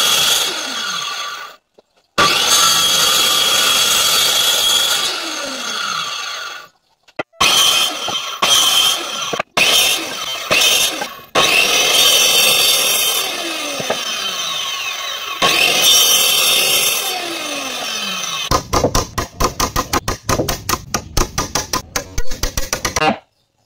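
Maktec circular saw cutting through wooden boards in a run of separate cuts, its motor whine falling in pitch as it winds down after several of them. Near the end, a quick series of sharp knocks, about six a second, as a chisel is driven into the timber.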